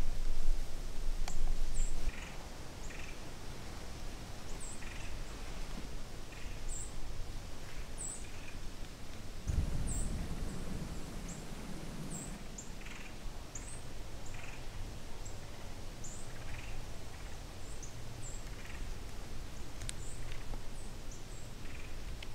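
Small birds chirping at first light: short high chirps, about one a second, over a low rumble. About ten seconds in comes a low rustle of handling close to the microphone.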